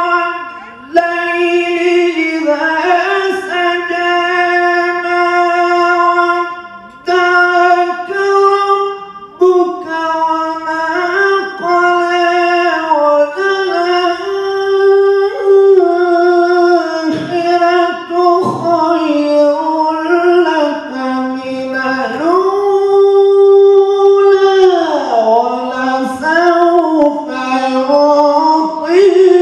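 Man's unaccompanied melodic Islamic recitation into a microphone. Long, ornamented notes slide between pitches, with short breaks for breath.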